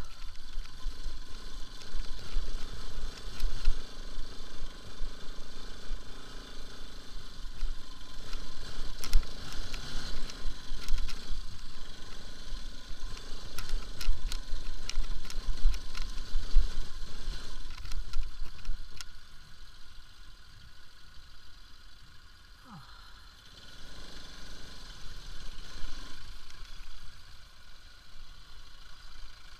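Bajaj Pulsar RS200 motorcycle riding over a rough stony dirt track: engine running under a heavy low rumble, with the bike clattering and rattling over the bumps. About two-thirds of the way through it drops much quieter as the bike slows.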